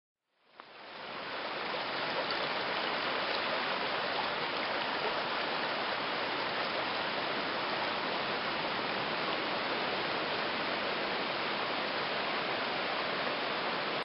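Steady rush of flowing water, fading in over the first couple of seconds and then holding even.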